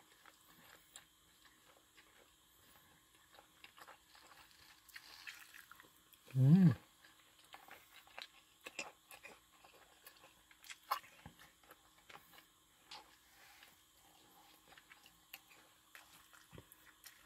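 Close-up chewing and biting sounds of a person eating fried rice with chopsticks: small wet mouth clicks and smacks scattered throughout. About six and a half seconds in comes a short, louder vocal sound from the eater, the loudest moment.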